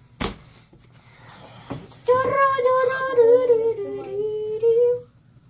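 A girl sings or hums a few long, held notes that drift slowly lower before she stops. A single sharp knock sounds just before, near the start.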